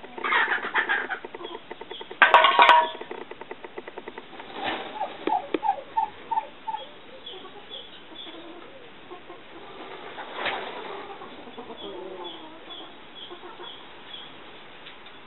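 Domestic turkeys calling as a tom displays: a loud rattling gobble about two seconds in, after a shorter call at the start, then a quick run of short clucking notes around five to seven seconds and another brief call about ten seconds in.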